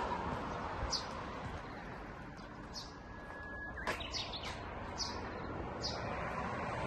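A bird calling over and over with short, high, falling chirps about every one to two seconds, over a steady outdoor background hiss. There is a single sharp click a little past the middle.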